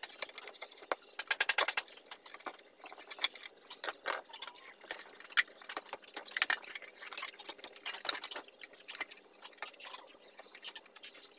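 Screwdriver turning screws out of an old amplifier's sheet-metal case: quick runs of small metallic clicks and scrapes, with knocks as the metal cover is handled. A thin, steady high tone sounds underneath.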